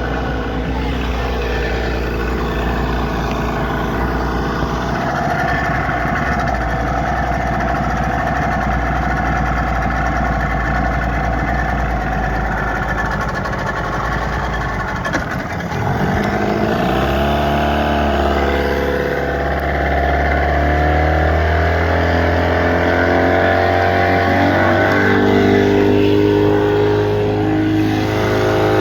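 Motorboat engine running steadily, then dipping briefly about halfway through before rising in pitch over several seconds as it speeds up.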